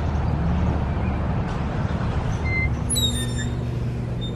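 Steady low rumble of motor-vehicle traffic, with a short cluster of high squeals about three seconds in.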